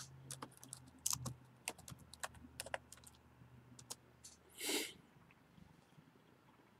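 Faint typing on a laptop keyboard: a quick run of key clicks over the first three seconds, then a few scattered clicks. A brief, louder rustle comes about four and a half seconds in.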